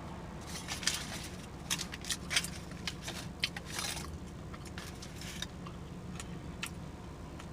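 Close-up eating sounds: wet smacks, clicks and crackles of chewing, thick for about the first four seconds and sparser after, over a steady low hum.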